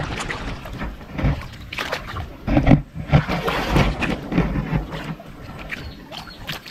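Hands groping through shallow muddy water, with irregular sloshing and splashing, loudest about two and a half seconds in.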